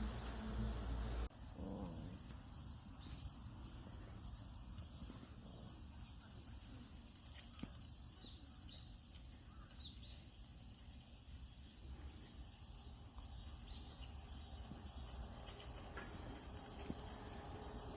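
Insects, crickets by the sound of it, chirring steadily in a high, continuous band. A low rumble cuts off abruptly about a second in.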